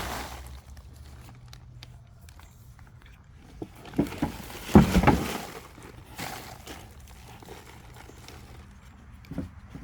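Scraping and a few knocks from handling a soil-filled plastic trash bag in a wheelbarrow, loudest in a short cluster about four to five seconds in, with a smaller knock near the end.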